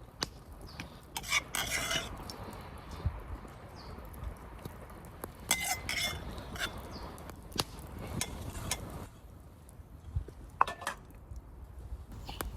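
Metal utensils scraping and clinking against a camp cooking pan in a few short bouts, over a soft hiss that stops about nine seconds in.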